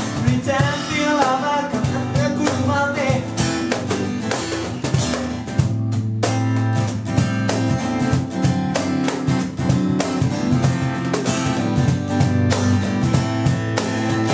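Acoustic guitar strummed with a cajon tapping out the beat. A sung melody line ends about three seconds in, and the guitar and cajon carry on without voice.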